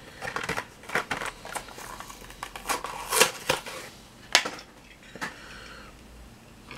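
A run of irregular sharp clicks and taps with a little crackling, from small hard plastic items being handled. The loudest cluster comes about three seconds in.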